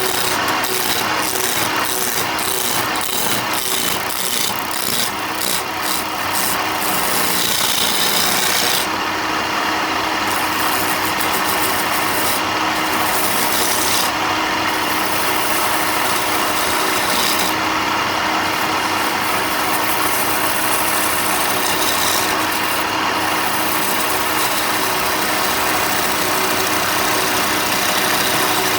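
A power tool grinding or sanding railway-sleeper timber: a loud, steady grinding whir, with a run of short ticks over the first several seconds.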